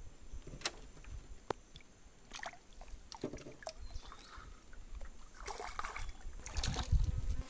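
Freshly caught river fish, held up out of the water, making strange intermittent noises: a few sharp clicks in the first couple of seconds, then short rasping bursts, the loudest near the end.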